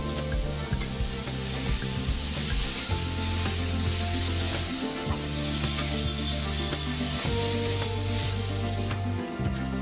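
Potato cubes sizzling as they fry in hot oil in a kadai, with a steel spatula stirring and scraping the pan; the sizzle grows louder about a second and a half in as they are stirred. Background music with steady low notes plays throughout.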